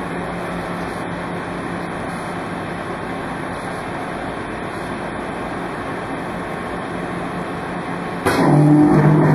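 Clamshell die cutter press humming steadily, then about eight seconds in a louder, deeper machine drone for about two seconds as the press cycles and die-cuts a 3.3 mm corrugated plastic sheet on a urethane cutting pad.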